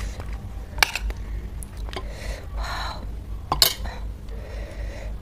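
Cutlery clinking against dishes: two sharp clinks, about a second in and again near four seconds, with a short rustling noise between them.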